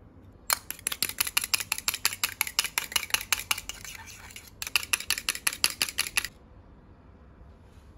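Metal spoon beating an egg yolk in a small stainless steel cup, clinking rapidly against the cup's sides, about eight clicks a second. The clinking breaks off briefly a little past halfway, starts again, then stops.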